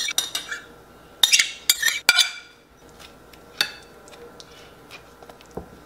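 Metal spoon scraping and tapping against a ceramic baking dish while spreading a thick filling over bread. It comes in a few short runs, the busiest from about one to two seconds in and ending with a sharp knock, then one more brief scrape near four seconds in.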